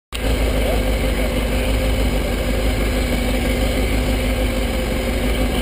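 Kawasaki ZX-6R 636 sportbike's inline-four engine idling steadily, picked up by a camera mounted on the bike.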